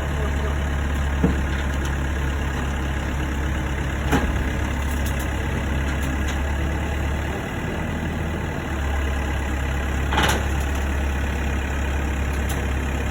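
Diesel engine of heavy machinery running steadily, its low note dipping briefly past the middle. It is broken by a short sharp noise about four seconds in and a louder one about ten seconds in.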